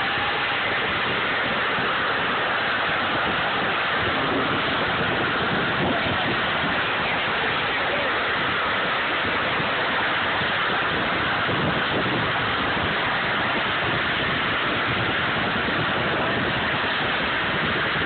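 Steady rushing road and wind noise from travelling along an asphalt road, with no engine tone or speech standing out.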